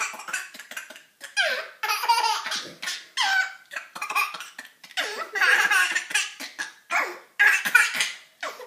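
A baby laughing hard in repeated bursts, about one a second, with short breaks between them.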